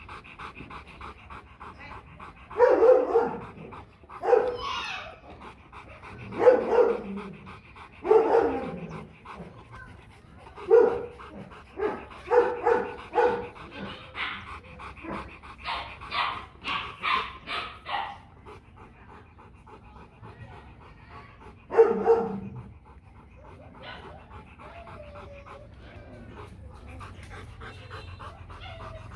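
Rottweiler panting steadily, broken by about a dozen loud single barks a second or two apart, a quick run of barks in the middle, and a last bark about three quarters of the way through, after which only the panting remains.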